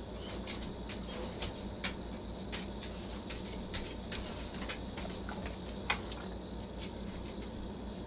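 Irregular light taps and clicks, a dozen or so over about six seconds, the sharpest near six seconds in, then stopping: a pileated woodpecker pecking and probing at the ground and rotten wood as it forages.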